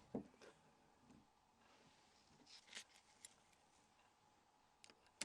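Near silence with a few faint, scattered small clicks of a screwdriver working screws out of a mobile phone's housing.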